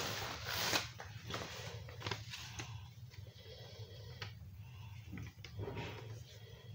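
Cardboard toy packaging being handled: scattered light rustles and short clicks, busiest in the first second, over a faint steady low hum.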